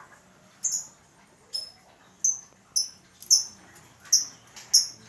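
Lovebird giving short, high-pitched chirps, about seven of them spaced half a second to a second apart; the owner calls the bird sick.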